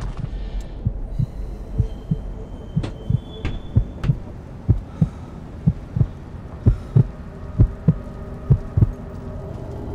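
Heartbeat sound effect: paired low thumps, lub-dub, about once a second, over a steady low drone. A thin high ringing tone sounds briefly near the start.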